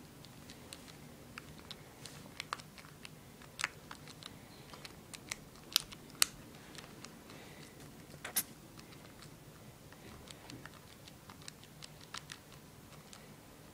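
Calculator buttons being pressed: irregular light clicks, sometimes several a second, with a few louder clicks around six and eight seconds in.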